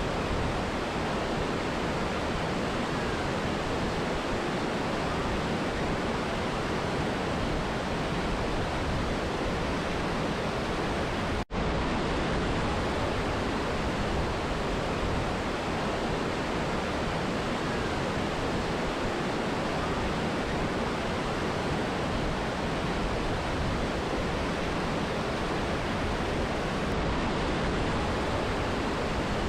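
Mountain river and waterfall rushing in a steady, dense hiss, broken once by a split-second gap about eleven seconds in.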